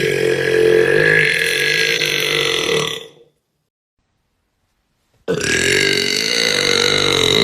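A woman burping loudly twice. Two long, drawn-out burps of about three seconds each, each starting abruptly, with a couple of seconds of silence between them.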